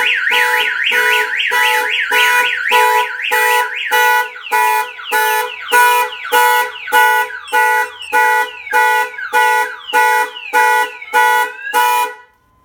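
Viper 5305V car alarm siren going off, set off by its shock sensor after a hit on the glass. It starts with a fast warbling wail for about four seconds, then changes to a pulsing chirp about twice a second, and stops shortly before the end.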